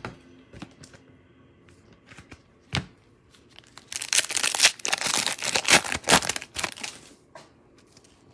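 Foil wrapper of a Cosmic Chrome baseball card pack being torn open and crinkled, a dense crackling from about four seconds in to about seven, after a few light taps.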